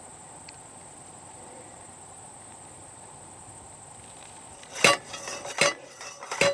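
Metal fencing hardware clinking: three sharp strikes, each with a short ring, starting about five seconds in, roughly three-quarters of a second apart. Before them a steady high insect trill.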